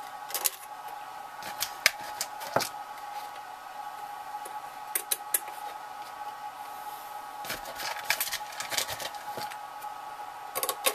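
Scattered light clicks and taps of small bolts and a hand tool against a clear plastic canopy section and its frame as it is bolted back together, coming in small clusters with the busiest stretch past the middle. A steady hum runs underneath.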